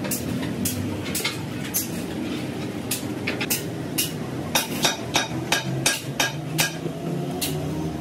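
Irregular sharp metal knocks and clinks, about twenty of them, coming faster in the second half, over a steady low hum.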